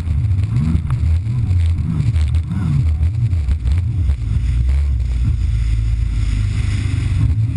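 Kawasaki Ultra 300X jet ski's supercharged four-cylinder engine running at speed, with water rushing past the hull. The engine note rises and falls several times over the first few seconds, then holds steadier.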